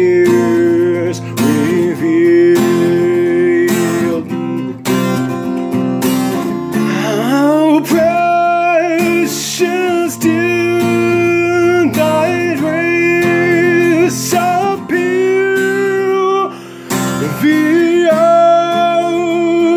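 Acoustic guitar strummed in a steady rhythm while a man sings along.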